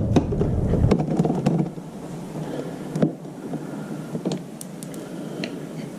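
Hands working on a scooter's plastic body panels and screws: rubbing and knocking for the first second and a half or so, then scattered light clicks.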